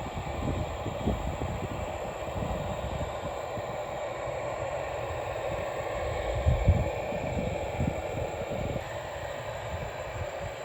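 Jet airliner engines running as a steady rumble, with wind buffeting the microphone in irregular gusts, the strongest about two thirds of the way in.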